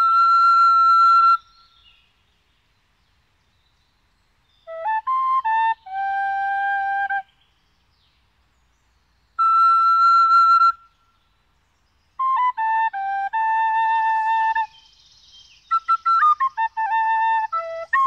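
A slow melody on a flute-like wind instrument: held notes and short stepping runs, played in phrases with pauses of a few seconds between them, and a longer, busier phrase near the end.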